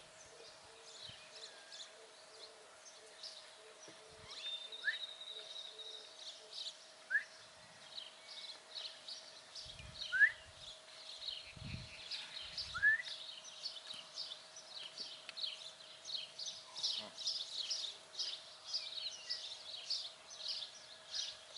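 Small birds chirping busily in the background, with a few short rising whistled notes and a faint steady hum underneath. A few brief low knocks come around the middle.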